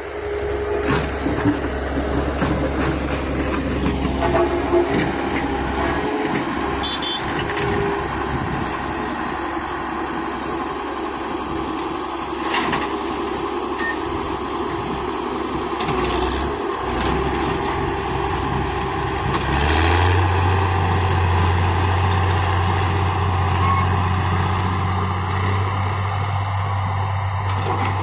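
Heavy diesel machinery running: a JCB backhoe loader's engine working under load as it digs, with occasional knocks and clanks. About twenty seconds in the engine drone rises in pitch and gets louder.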